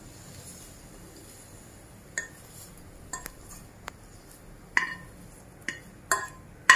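A non-stick frying pan and utensil clinking against a glass bowl as scrambled egg is scraped out of the pan into the bowl. A run of sharp clinks with a short ring begins about two seconds in, coming roughly every half second to second and loudest near the end.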